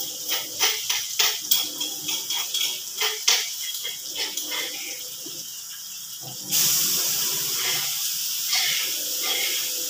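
Vegetables frying in oil in a hot steel wok: crackling and sizzling. About six and a half seconds in, the sizzle turns suddenly louder into a steady hiss.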